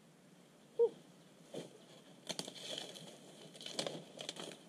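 Leaves and twigs rustling and crackling as someone pushes into dense brush, with a short falling call about a second in and a faint steady insect buzz underneath.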